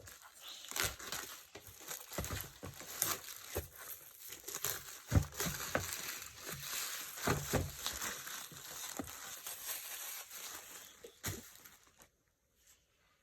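Toy packaging being handled and opened: irregular crinkling and crackling with some tearing and a few sharp knocks, stopping just before the end.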